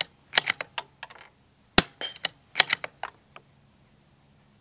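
CZ 457 Royal .22 LR bolt-action rifle's bolt being cycled: several quick clusters of sharp metallic clicks as the bolt is lifted, drawn back and pushed home, feeding rounds from the steel magazine.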